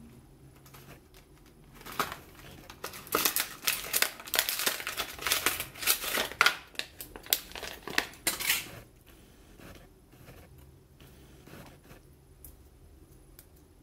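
Crinkling plastic packaging being handled and opened, a dense crackle from about two seconds in to about nine seconds. A few faint clicks follow.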